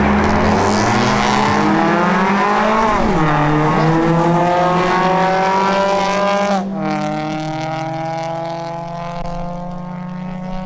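Mazda CX-3 and Nissan Sentra B13 engines at full throttle down a quarter-mile drag strip, pitch climbing through the gears. There is an upshift drop about three seconds in and another around six and a half seconds, then a steadier, slowly rising drone.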